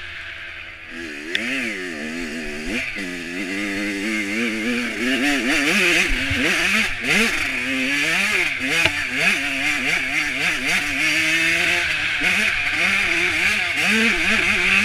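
Off-road motorcycle engine heard up close from the rider's position, revving up and down again and again as the throttle is worked through the trail, over a steady rush of noise.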